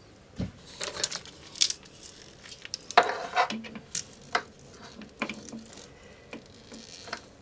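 Small hard plumbing parts being handled, a string of irregular clicks and clattering knocks.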